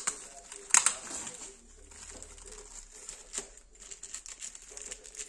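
Plastic protective film crinkling and tearing as it is peeled off a black finned heatsink, with sharp rustles about a second in and again past the three-second mark.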